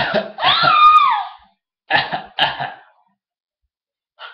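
A man coughs, then a baby gives a high squeal that rises and falls for about a second, followed by two more short coughs.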